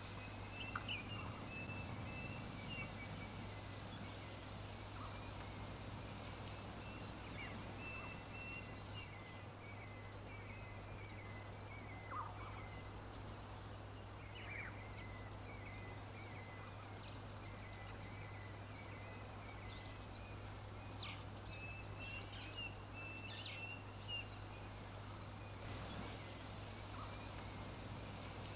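Small birds chirping: a run of short, high, downward-sweeping chirps, about one or two a second, over a steady twittering chatter. A constant low hum runs underneath.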